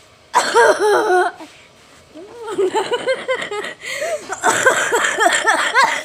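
A child vocally imitating a broken-down Jeep engine that won't start, with cough-like sputters. A loud sputter comes about half a second in, then a quick, rhythmic run of sputtering vocal pulses from about two seconds on.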